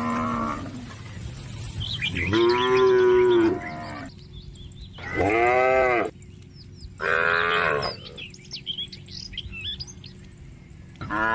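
Cattle mooing repeatedly: about three full calls, each about a second long and rising then falling in pitch, with short pauses between. Birds chirp faintly in the gaps.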